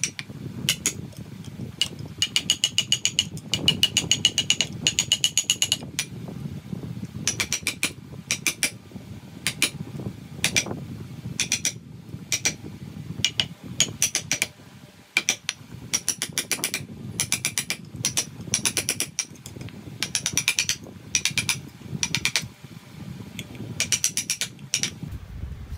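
Mallet striking a carving chisel into a wooden statue, in quick runs of sharp, ringing blows several a second, broken by short pauses.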